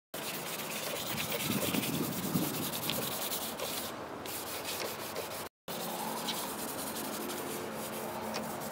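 Charcoal stick rubbing and scraping across paper in repeated strokes, broken by a brief drop-out to silence about five and a half seconds in.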